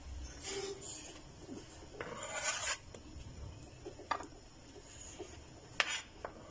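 Diced papaya and a kitchen knife scraping and sliding across a plastic cutting board, with a longer scrape about two seconds in. A few sharp taps of the knife blade on the board follow near the end as more pieces are cut.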